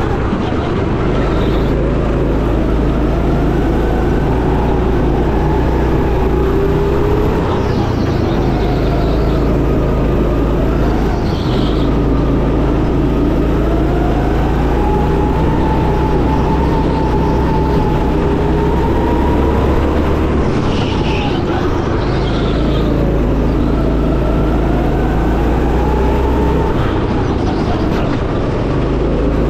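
Go-kart running laps onboard, its motor's pitch rising and falling every few seconds as it speeds up and slows through the corners, over a steady low rumble. A few short higher-pitched squeals cut in along the way.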